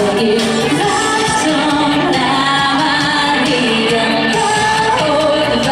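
Female pop singer singing a song live over loud pop accompaniment.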